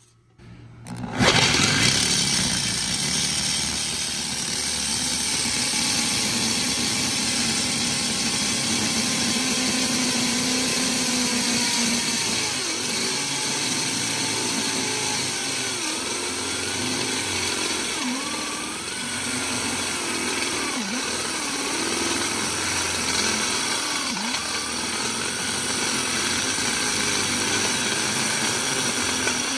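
Electric drill turning a step drill bit through stainless steel. It starts about a second in and runs steadily, and its pitch dips again and again as the bit bites and loads the motor, until it stops near the end.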